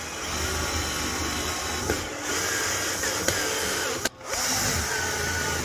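Cordless drill driving a 3-inch screw into a wooden 1x2 frame, its motor running steadily. It stops briefly about four seconds in, then runs again.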